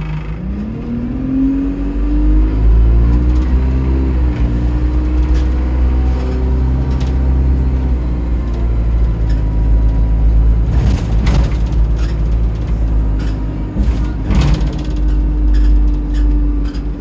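Single-deck bus diesel engine heard on board, pulling away with its note rising in the first couple of seconds and then running steadily under load. A faint high whistle rises and falls over it, on a bus whose turbo is leaking. Several sharp clicks and knocks come past the middle.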